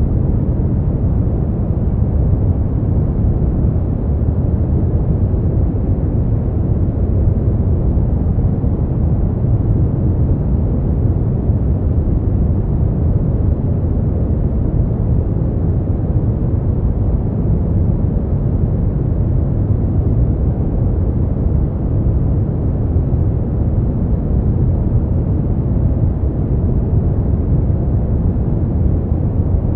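Steady brown noise: an even, unchanging deep rumbling hiss, strongest in the bass and falling away toward the treble, with no tones or events.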